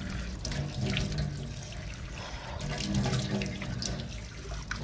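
Water running from a tap into a stainless steel sink, splashing as face and hands are washed under the stream.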